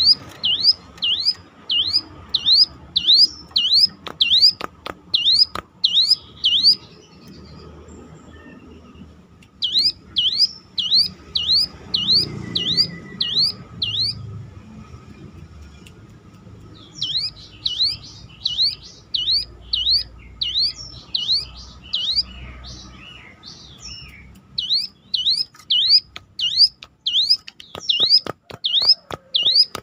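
Ciblek gunung (hill prinia) calling one siren-like note over and over, about twice a second, in runs of several seconds with short pauses between.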